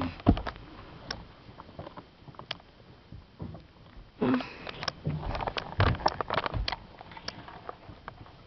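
Handheld camera handling noise: scattered clicks and knocks, thickest from about four to seven seconds in.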